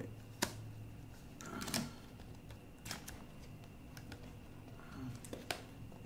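Small cardboard product box being opened by hand: a few faint, sharp clicks and rustles, spread a second or so apart, as the flap and tab are worked loose.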